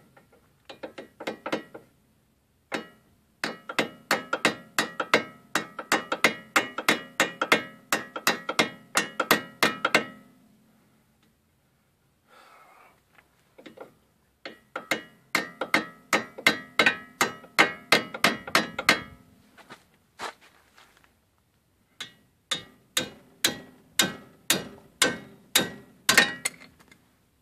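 Hammer blows on a steel socket over a grime-caked nut on a Dana 30 axle, striking about three times a second in several runs with short pauses, each blow ringing metallically.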